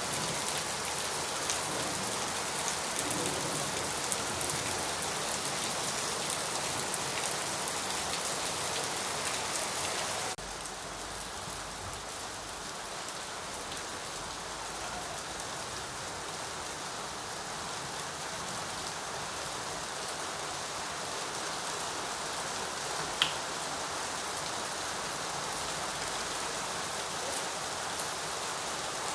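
Steady rain falling, a dense even patter of drops. About a third of the way in it abruptly becomes quieter and duller, and a single sharp drip or tick stands out later on.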